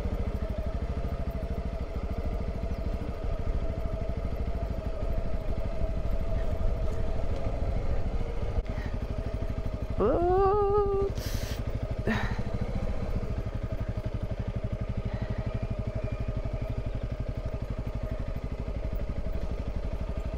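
Honda CRF300 Rally's 286 cc single-cylinder engine running at low, steady revs as the motorcycle is ridden slowly over slippery mud. A short rising pitched sound comes about ten seconds in.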